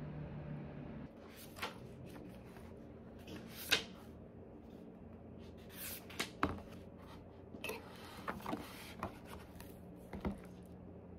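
A book being handled and its paper pages flipped: a string of separate rustles and soft taps over a low steady hum.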